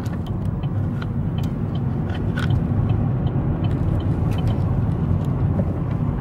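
Road noise inside a moving car: a steady low rumble of engine and tyres, with a few faint clicks.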